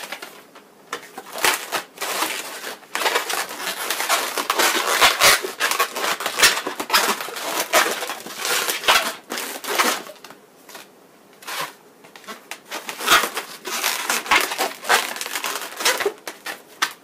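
Inflated latex modelling balloons squeaking and rubbing against each other under the hands, in irregular stretches with brief pauses.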